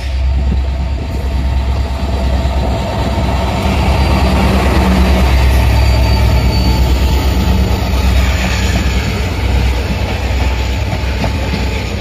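Passenger train running on the rails: a loud, steady rumble of wheels and carriages that swells a little around the middle.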